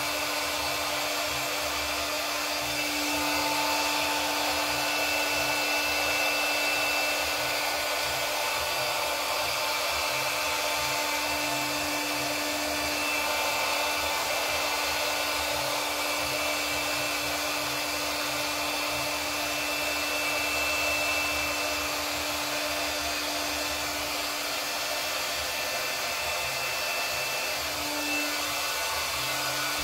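Handheld hot-air blower running steadily: a rushing hiss with a steady hum under it, swelling slightly in level now and then.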